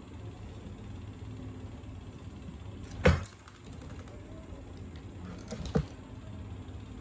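Micro DC motor spinning a homemade bottle-cap propeller, a steady low hum. A sharp knock comes about three seconds in and a smaller clatter near six seconds.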